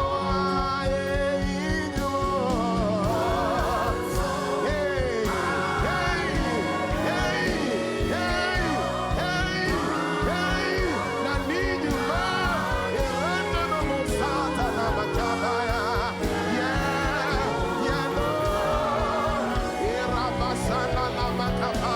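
Gospel worship music: singing with wavering vibrato and sliding vocal runs over a full instrumental accompaniment.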